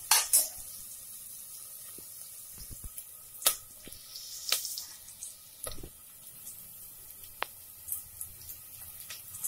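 Chopped onions sautéing in hot oil in a pressure cooker: a steady sizzle with scattered pops and crackles. A steel spatula clinks against the pot once or twice at the start.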